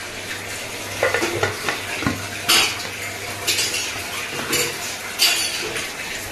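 An aluminium pressure cooker's lid is set on the pot and twisted shut by its handle, giving a series of sharp metal clanks and scrapes over a steady low hum.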